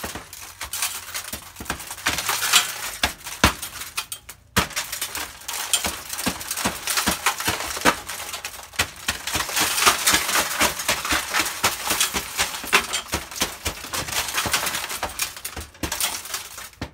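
Shattered tempered oven-door glass being knocked and scraped out of its frame with a wooden-handled tool: a dense run of crunching, tinkling glass pieces and sharp knocks, with a brief pause about four seconds in and another about nine seconds in.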